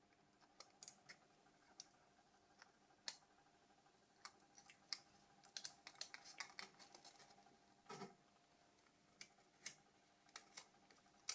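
Faint, irregular small clicks and taps of a Nokia C3-01's plastic body shell and internal parts being handled and pried apart, with a slightly duller knock about two-thirds of the way in.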